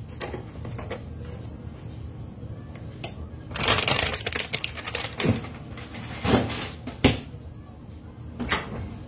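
Kitchen handling noises while sandwiches are assembled on a cutting board: a burst of rustling about three and a half seconds in, then a few shorter rustles and knocks and a sharp click about seven seconds in.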